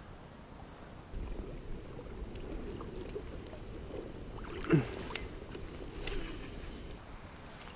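Water sloshing and handling noises around a small inflatable PVC fishing raft, with scattered small clicks. About halfway through comes one short falling squeak, the loudest sound.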